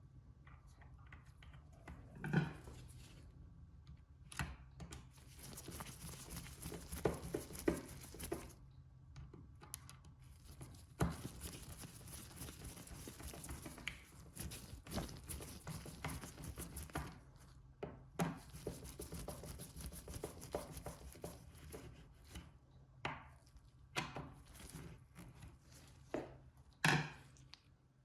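Bench-work handling sounds from servicing a horse clipper: scattered knocks and clicks of metal and plastic parts being handled and set down, with several stretches of steady rushing noise.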